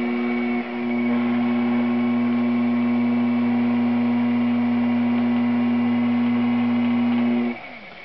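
Electric potter's wheel motor humming steadily while a large bird bath top is thrown. About seven and a half seconds in the hum winds down with a brief falling pitch as the wheel slows.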